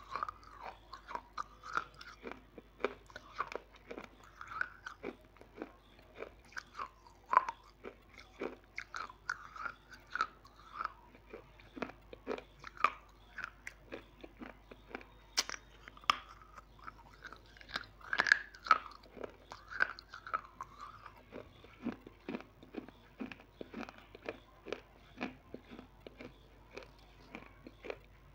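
Close-miked eating of a crunchy snack: irregular sharp crunches as it is bitten, with steady chewing between them. The loudest crunches come about 7, 15 and 18 seconds in.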